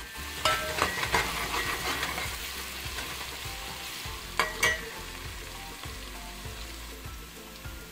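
Chopped onion sizzling in hot oil in a metal pot as it is stirred with a metal slotted spatula, the onion lightly browned. A few sharp clinks of the spatula against the pot, two close together about four and a half seconds in.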